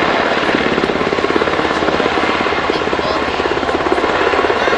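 HH-60 Pave Hawk military helicopter flying past, its rotors beating in a rapid, steady rhythm.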